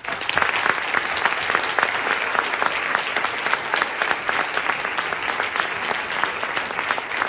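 Audience applauding, a steady dense clapping that starts at once.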